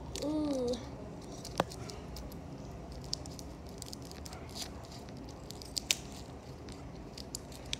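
Clear plastic wrapping crinkling and rustling as cotton-stuffed squishies are handled, with scattered faint crackles and a couple of sharp clicks about one and a half seconds in and near six seconds. A short wavering voice-like sound comes just after the start.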